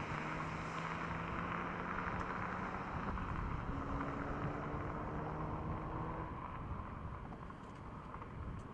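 Seat Ibiza Cupra's engine running at fairly steady revs, a low hum over road and wind noise, growing a little quieter near the end.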